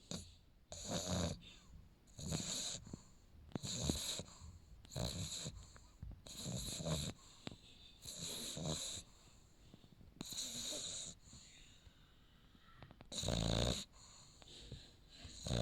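French bulldog puppy snoring in its sleep, one snore with each breath about every second and a half, with a longer pause and then a louder snore near the end. This is the noisy sleep breathing typical of a flat-faced breed's short airway.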